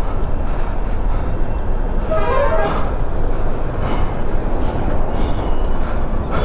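Motorcycle engine running at low speed, a steady low rumble with road and traffic noise. A brief pitched sound comes about two seconds in.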